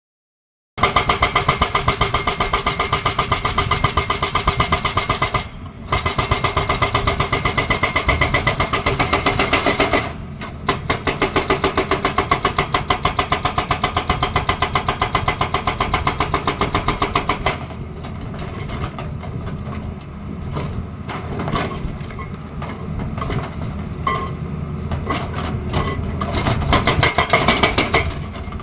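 Excavator-mounted hydraulic breaker hammering with fast, even blows, pausing briefly twice. After about 17 seconds the hammering stops and the machine runs on with irregular knocks and clanks.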